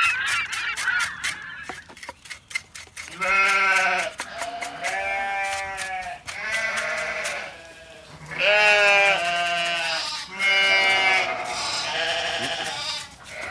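Farm livestock calling repeatedly: about six drawn-out, pitched calls of roughly a second each, beginning a few seconds in.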